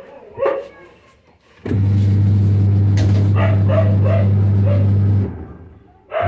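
Washing machine motor humming loudly and steadily, switching on about two seconds in, cutting out near the end and starting again. A dog barks a few times at the start and again over the hum.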